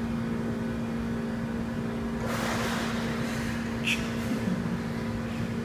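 Swimmer breaking the surface of a pool, a splash of water about two seconds in that fades over about a second, with a brief high squeak soon after. A steady low mechanical hum runs underneath.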